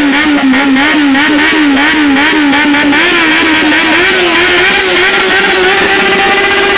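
Motorcycle engine revved and held at high revs. For about three seconds the pitch wavers up and down as the throttle is blipped, then it holds steadier and slightly higher.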